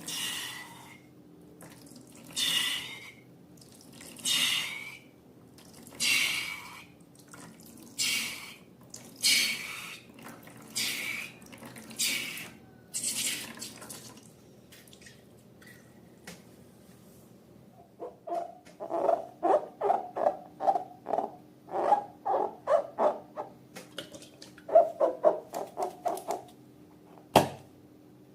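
Wet, sticky slime being worked by hand: first squishy, hissing squelches about every second and a half, then, after a short pause, a quick run of wet pops and clicks.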